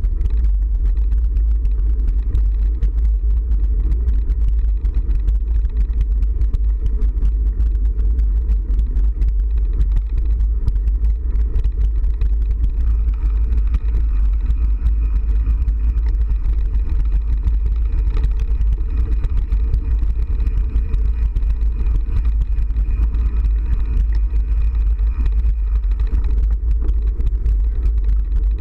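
Loud, steady low rumble of a running vehicle, with a faint high whine over it for a stretch in the middle.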